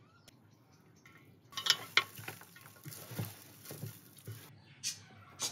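Hands tossing and squishing seasoned pieces of raw fat in an enamel bowl: soft wet slaps and rustles starting about a second and a half in, with a couple of sharper taps just before two seconds in.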